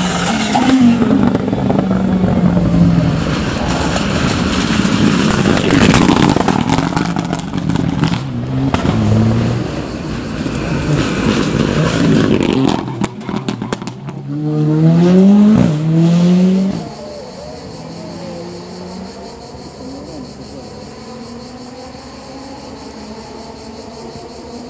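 Two rally cars, a Škoda Fabia R5 and then an Abarth 124 Rally, pass one after the other at full throttle, their turbo engines revving hard. The second car's pitch climbs in steps through upshifts. A little after halfway the engine sound drops away to a faint steady hum.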